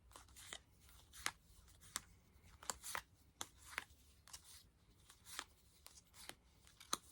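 Yu-Gi-Oh trading cards handled and flicked through by hand: faint, irregular short snaps and swishes of card against card, about a dozen of them.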